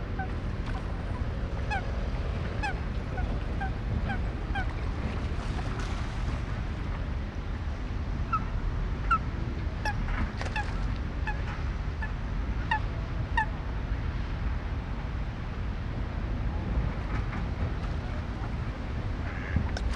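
Waterfowl, such as geese, giving a rapid series of short calls that thin out after about fourteen seconds, over a steady low background rumble of park ambience.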